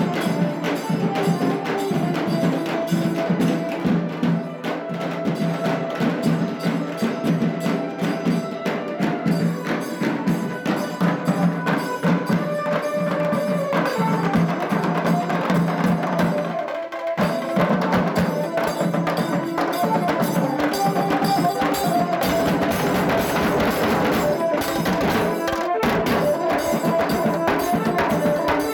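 Dhol-tasha band playing: dhol drums and tashas beat a fast, dense rhythm under a keyboard playing a film-song melody. The music breaks off briefly a little past halfway, then carries on.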